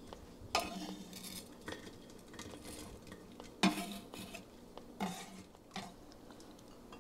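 Metal kitchen utensils scraping and knocking against a stainless steel pot and a stoneware bean crock. About five separate knocks, each with a short ring, come between quieter scraping.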